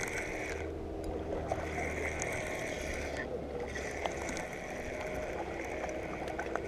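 Steady rush of river water with a low rumble, and a soft whirring that comes and goes three times.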